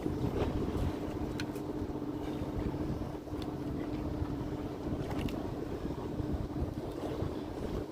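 A fishing boat's engine running with a steady hum, its drone held at one even pitch, with a few faint clicks scattered over it.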